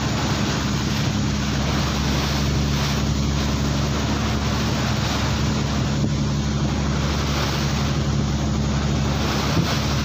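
A fishing boat's engine running steadily at an even pitch, under the rush of wind on the microphone and the wash of the sea.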